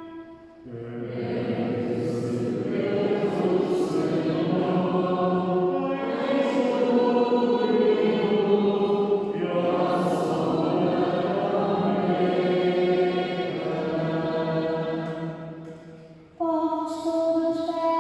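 A choir singing a Portuguese responsorial psalm, many voices together. The singing stops about two seconds before the end, and held instrumental notes take over.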